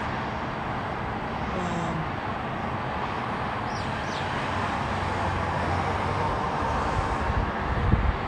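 Steady hiss of traffic on a multi-lane highway heard from high above. Near the end, a few low rumbles rise over it.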